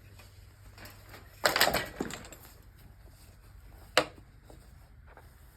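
Nylon trimmer line being pulled through the eyelets of a string-trimmer head: a short rasping pull about one and a half seconds in, then a single sharp click near four seconds.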